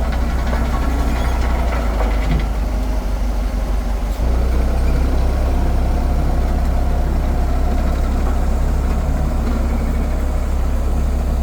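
Excavator's diesel engine running steadily at a low idle.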